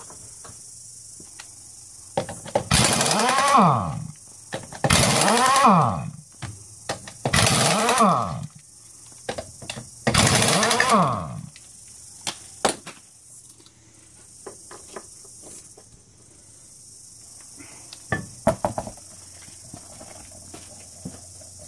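Pneumatic impact wrench undoing wheel nuts: four bursts of about a second each, each rising and then falling in pitch, with a few light clicks and knocks near the end.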